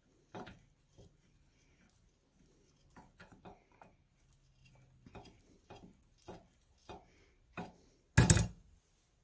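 Light clicks and taps from a bench-mounted engine fuel pump as its plunger is worked by hand, growing more frequent after a few seconds, then one much louder knock about eight seconds in.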